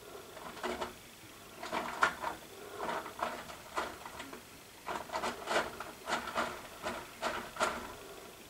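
Plastic bird food bag crinkling and rustling in irregular bursts as a pine marten tugs and digs at it.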